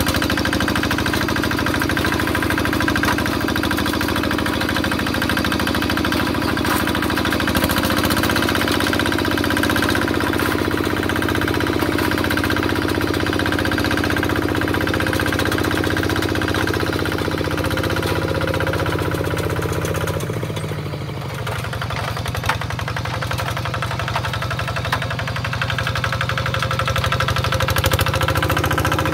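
A two-wheel walking tractor's single-cylinder diesel engine running steadily under load as its cage wheels work the soil. Its pitch steps up slightly about a quarter of the way in, then drops briefly about two-thirds through before it runs on.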